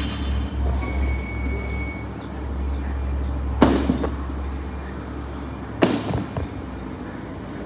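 Pair of 50 lb dumbbells knocking down onto a rubber mat over concrete at the bottom of deadlift reps: three sharp knocks about two seconds apart, over a steady low rumble.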